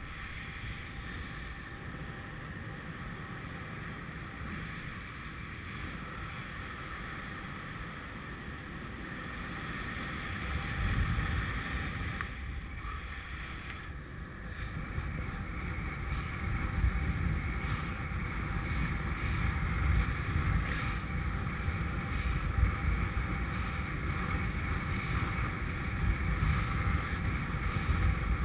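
Wind rushing over a GoPro's microphone in the airflow of a paraglider in flight, a steady rumble that turns heavier and gustier about ten seconds in.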